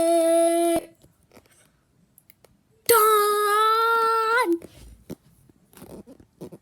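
A child's voice singing two long held notes: the first, lower one stops about a second in, and a higher, slightly wavering one follows from about three seconds in to about four and a half seconds. Faint small clicks and rustles come after.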